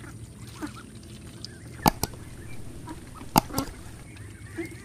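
Domestic ducks on a pond calling faintly over a steady low background. Three sharp clicks cut through, the loudest sounds here: one about two seconds in and two close together about three and a half seconds in.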